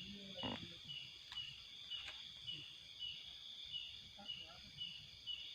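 Night insects, crickets among them, singing: a steady high trill with a chirp repeating about four times a second. A few faint clicks and rustles sound through it.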